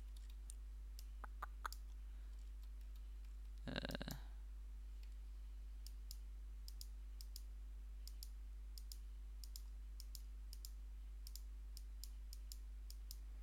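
Sparse, scattered clicks of a computer mouse over a steady low electrical hum. A brief vocal sound comes a little under four seconds in.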